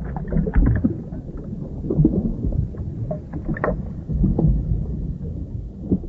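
Underwater ambience: a low, steady rumble with irregular small pops and clicks scattered through it.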